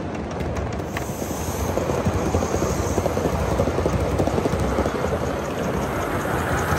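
Gauge 1 model train running past close by: a steady rumble of wheels on the rails that grows louder about a second and a half in.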